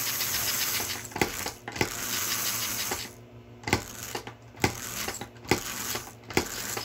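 American Flyer 287 toy steam locomotive running on the track. Its motor sound falls away about a second in, leaving sharp metallic clicks about once a second.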